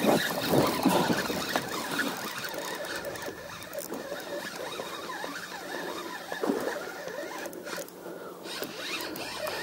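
Spinning reel being cranked steadily, a continuous fine rasp of the gears and line winding, while reeling in a hooked fish on a bent spinning rod.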